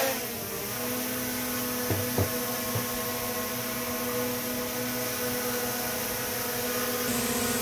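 DJI Mini 3 Pro drone with aftermarket AliExpress propellers lifting off and hovering, its motors and props giving a steady, sharp whine of several even tones. The sharpness comes from the aftermarket props' hard painted tips, which, unlike the genuine rubber-tipped props, make the drone noticeably louder. Two faint clicks about two seconds in.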